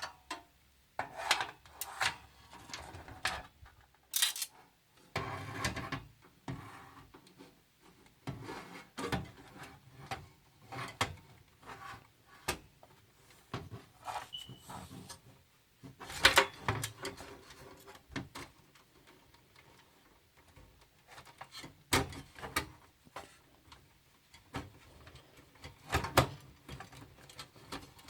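Hands handling a PC power supply and a metal tower case: irregular clicks, knocks and rubbing scrapes as the unit is moved and fitted into place, with a quieter spell about two-thirds of the way through.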